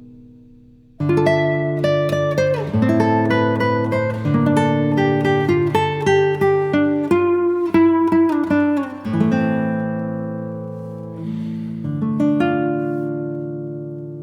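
Background music of a plucked acoustic guitar, a gentle melody of ringing picked notes that starts about a second in after a fading note, then thins out into sustained notes.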